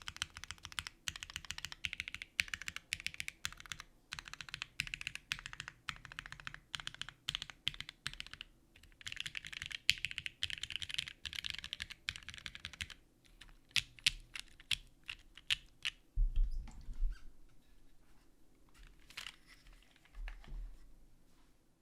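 Custom gasket-mount mechanical keyboard with Gateron Pink linear switches on an aluminium plate and GMK keycaps, keys being spammed in fast clattering runs, then slowing to separate single presses. A low thump about two-thirds of the way through, followed by a few scattered clicks.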